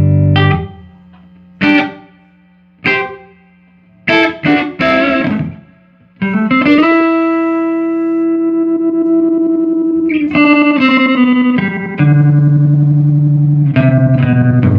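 Electric guitar played through a 1975 Fender Twin Reverb amp: a few short chord stabs and a quick run of notes, then a note bent upward and held for about three seconds, followed by ringing sustained chords.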